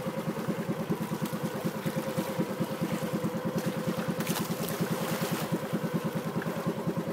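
The small engine of a bangka outrigger boat running steadily, its rapid, even pulses chugging along at one unchanged speed.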